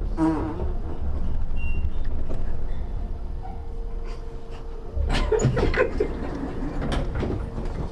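Fart noises from a prank sound device: a short buzzy, wavering one at the start and a louder one about five seconds in, over a low steady rumble.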